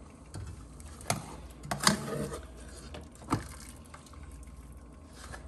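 A wire mesh strainer basket scooping shredded chicken out of a pot of broth, knocking and clinking against the pot a few times, over a low steady hum.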